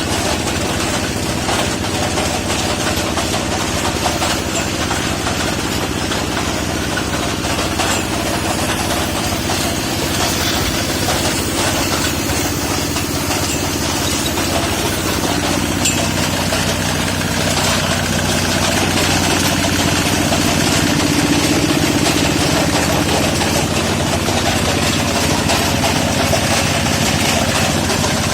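A machine motor running steadily with a constant low hum, getting a little louder about two-thirds of the way through.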